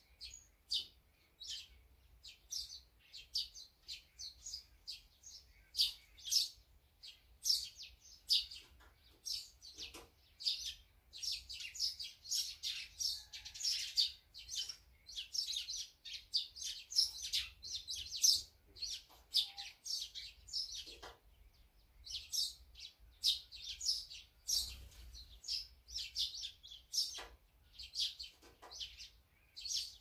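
Small songbirds chirping: a near-continuous run of short, high chirps from several birds, thinning briefly about two-thirds of the way through.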